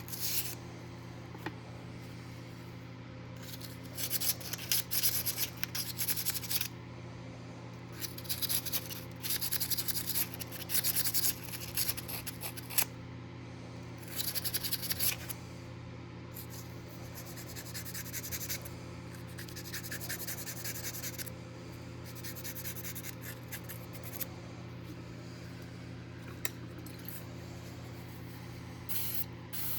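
Rubbing and scraping by hand in irregular bursts of one to two seconds, over a steady low electrical hum.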